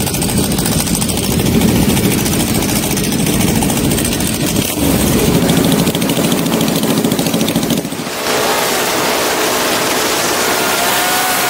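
Sport motorcycle engines, red Ducati superbikes among them, running and revving close by. After about eight seconds the sound switches to a steady rush of wind and road noise from riding at speed, with an engine note rising near the end.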